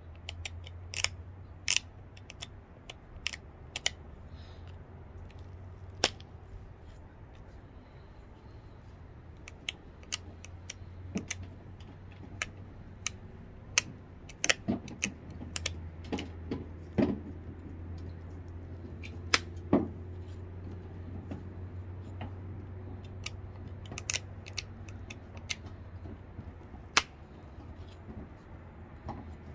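Antler pressure flaker working the edge of a flint biface: irregular sharp clicks and snaps as pressure flakes pop off the stone, some loud, spread across the whole stretch, over a steady low hum.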